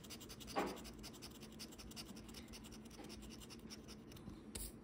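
Faint, rapid scratching of the coating off a Loteria scratch-off lottery ticket, many short strokes a second, with one louder stroke near the end.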